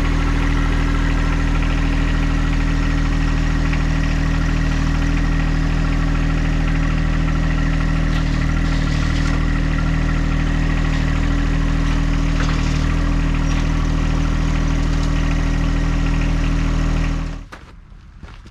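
Tractor engine running steadily at idle, then stopping abruptly about seventeen seconds in.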